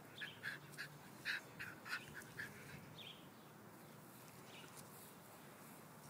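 A rapid series of short, high squeaks, about four a second, for the first two and a half seconds, then a few fainter squeaks, from a puppy and a Scottish terrier tussling over a small red ball.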